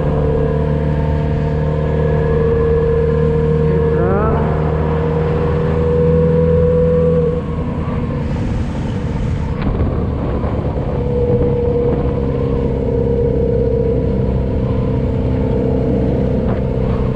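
Motorcycle engine running steadily while riding. The revs rise briefly about four seconds in, the engine note falls away about seven seconds in, and it comes back a few seconds later.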